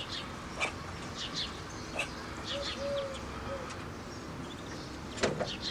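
Muscovy ducklings peeping: many short, high chirps repeating irregularly, with a soft, low coo about halfway through.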